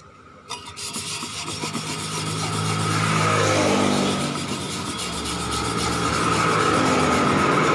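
Sandpaper rubbed by hand across the steel heating plate of a tyre-patching press, a dry scraping that smooths the rough, dirty plate. From about a second in, a motor hum with a steady whine grows louder and becomes the loudest sound.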